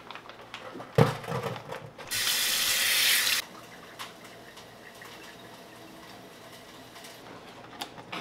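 A sharp thump about a second in, then a kitchen tap running into a stainless-steel sink for just over a second before it is shut off.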